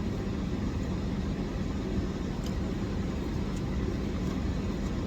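Steady low hum of a car engine idling, with one constant droning pitch under it.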